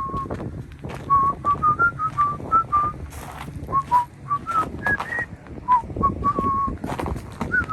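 A person whistling a tune, one clear note after another stepping up and down, over the repeated crunch of footsteps in deep snow.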